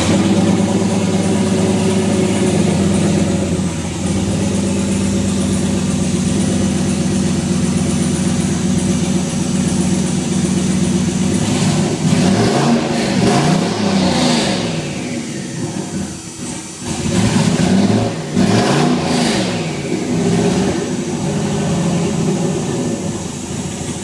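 Turbocharged 5.3-litre LS V8 (stock bottom end, 6.0 heads, Howard's turbo camshaft) starts up right at the beginning and idles steadily, heard from inside the truck's cab. It is revved in two spells, about 12 and 18 seconds in, the pitch rising and falling each time, with no load or boost on it.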